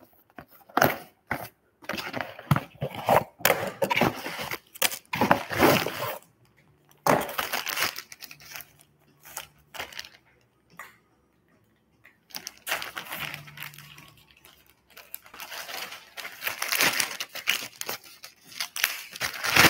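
Plastic packaging bag crinkling and rustling while a cardboard gift box is handled, in irregular bursts with a few short pauses.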